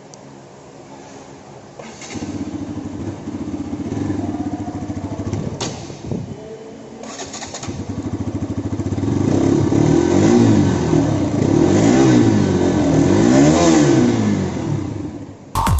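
Sports motorcycle on its stock exhaust, idling and then revved, louder after about two seconds, with three rising-and-falling revs in the second half.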